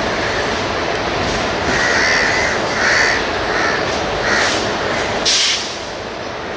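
Crows cawing repeatedly over the steady rumble of an approaching suburban electric multiple unit (EMU) train on the tracks. A brief, sharp hiss sounds about five seconds in.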